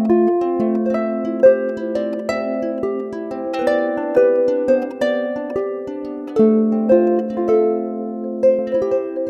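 Seven-string lyre harp with metal strings plucked in a flowing melody, each note ringing on under the next.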